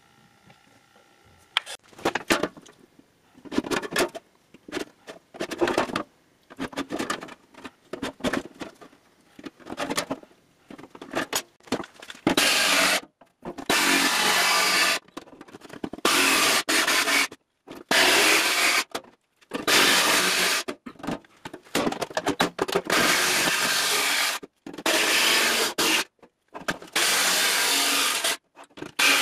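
Cordless DeWalt jigsaw cutting through the sheet-steel lid of an ammo can, with a harsh rasping buzz. Short, lighter bursts come first. From about twelve seconds in, louder cutting runs of a second or two follow, each broken off abruptly.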